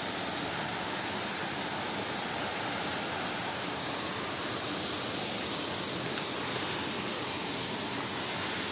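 Steady rush of a waterfall's falling water, an even, unbroken wash of noise.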